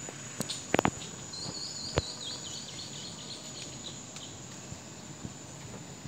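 Steady high-pitched insect drone over outdoor background noise, with a short warbling bird call about a second and a half in. Near the start come a few sharp clicks, the loudest three in quick succession, and one more about two seconds in.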